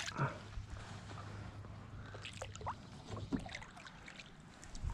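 Quiet water sounds around a kayak: faint drips and small splashes on the pond surface, with a few light, brief clicks and ticks.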